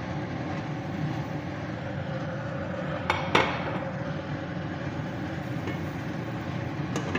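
Fried chicken pieces tipped into a metal pan and stirred with a metal fork over a steady low background noise, with two sharp clinks of the fork against the pan about three seconds in.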